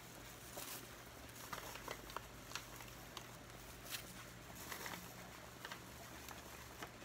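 Faint, irregular soft clicks and light rustling as a plastic-gloved hand places pineapple tidbits onto a pizza in a pan, with a low steady hum underneath.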